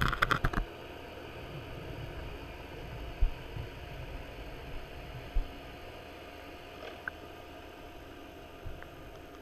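Underwater sound through a GoPro's waterproof housing: a steady low hum and hiss, with a quick clatter of knocks in the first half second and a few dull thumps later.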